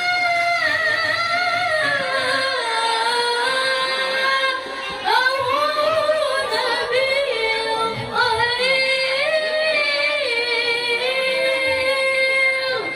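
A woman's voice reciting the Qur'an in melodic tilawah style: long held notes with ornamented pitch turns, with a short breath break about four and a half seconds in.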